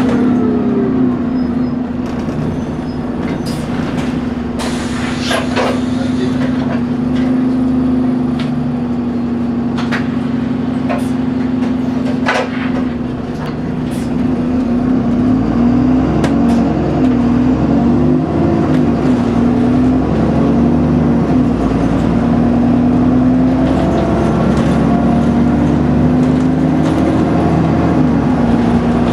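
Interior of an ADL Trident 2 double-decker bus with an Enviro 400 body on the move: the diesel engine and driveline run with a steady drone whose pitch rises and falls with speed, a falling whine at the start as the bus slows. A few sharp rattles and knocks from the bodywork come in the first half.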